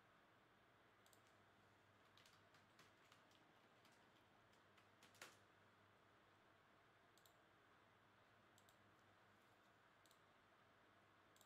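Near silence with faint, irregular clicks of a computer keyboard and mouse as names are typed into a spreadsheet; one click about five seconds in is a little louder.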